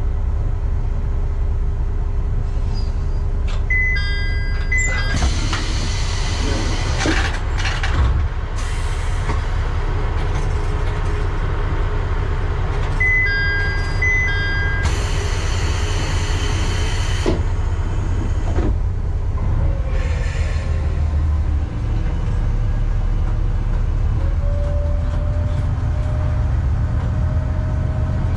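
Kishu Railway KR301 diesel railcar idling at a station with a steady engine rumble. Twice there is a short electronic chime followed by about two seconds of air hiss. Near the end the engine note rises as the railcar starts to pull away.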